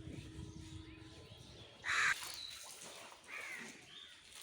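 A crow cawing once, loud and short, about two seconds in, with fainter bird calls after it.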